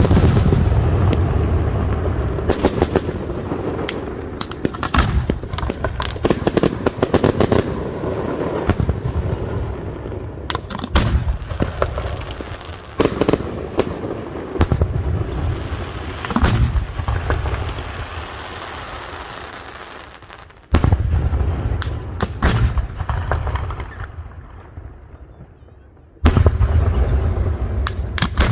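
Valencian castillo aerial fireworks by Pirotecnia Nadal-Martí: shell bursts banging in quick succession over dense crackling. Heavy booming salvos begin abruptly about 20 seconds in and again near the end, each fading into crackle.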